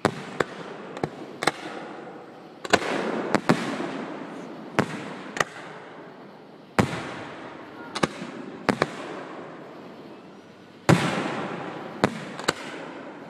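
Aerial fireworks shells bursting in a show: a string of sharp bangs at irregular intervals, each trailing off in a long echo. The biggest bursts come about three seconds in and again near eleven seconds.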